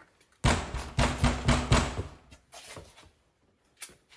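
A run of heavy bangs, several loud thuds in quick succession, starting about half a second in and stopping after about a second and a half.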